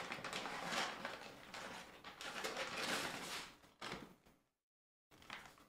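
Paper grocery bag rustling and crinkling as a hand rummages through it and pulls out a packaged snack bag. The rustling stops after about three and a half seconds.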